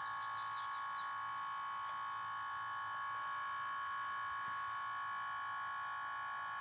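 Steady electrical whine made of several stacked high tones, from a battery discharge load drawing about 8 amps from the pack.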